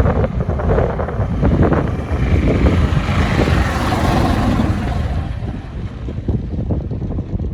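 Heavy earth-moving machinery working rock: a diesel engine's low rumble under crunching, clattering rock and gravel, with a hiss that swells and fades about halfway through.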